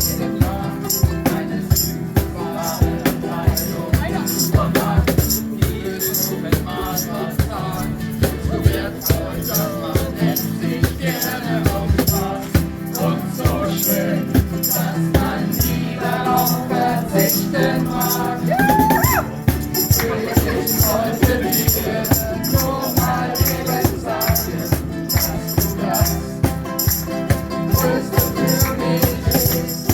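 Live group ukulele music: strummed chords over a steady rattling shaker beat, with voices singing along.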